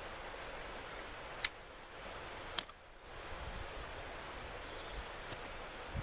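Quiet woodland ambience: a steady hiss with faint rustling, broken by two sharp clicks, one about a second and a half in and another about a second later.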